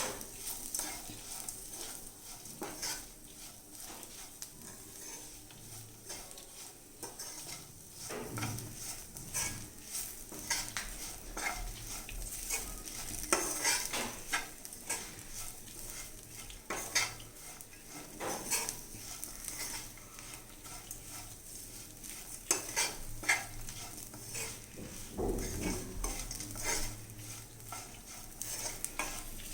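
Cluster beans stir-frying in a pan: a steady sizzle, with a spatula stirring and scraping against the pan every second or two.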